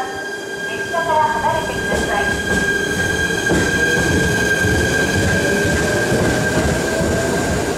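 Shinano Railway SR1-series electric multiple unit pulling out of the station and passing close by, its traction motors giving a steady high whine with a lower tone that slowly rises in pitch as it gathers speed, over growing wheel-on-rail noise.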